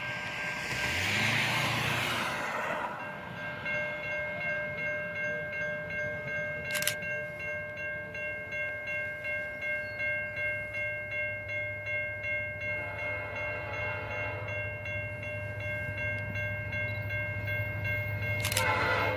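Railroad grade-crossing bell ringing steadily at about two strokes a second while the gates are down. A rush of noise fills the first three seconds, and from about halfway through the low rumble of an approaching diesel locomotive builds underneath.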